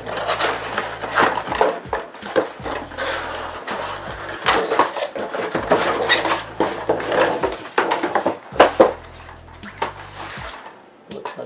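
Cardboard packaging being handled by hand: box flaps and a cardboard insert rubbed, pulled and scraped, with many short scrapes and taps.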